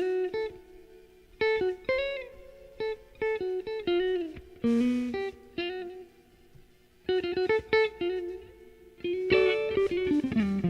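Electric guitar playing blues phrases of plucked notes with bent pitches, in short runs separated by brief pauses; near the end a note slides down in pitch.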